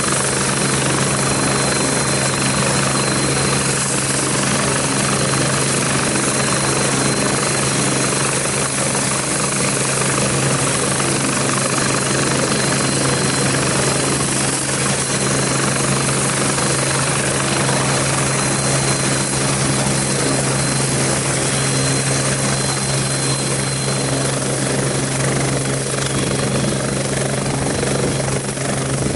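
Kazan Ansat air-ambulance helicopter running on the ground with its rotor turning, a steady loud turbine-and-rotor din from its twin turboshaft engines. A thin high whine rides over it until it fades out near the end.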